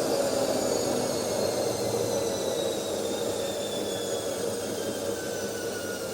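Washing machine running, with a steady mechanical rumble and faint whines that fall slowly in pitch as the sound gradually grows quieter.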